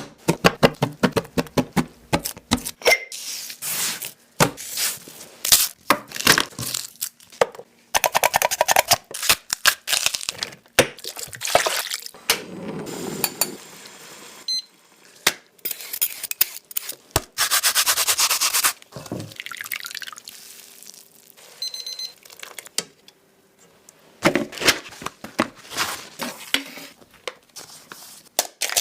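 Eating sounds of hot pot: liquid slurping and wet noises with many quick clicks and crunches, and utensils against dishes.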